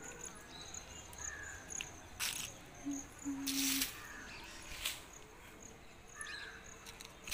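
Insects chirping in a steady, high-pitched, evenly pulsed rhythm, with a few short bird calls and some brief rustling noises around the middle.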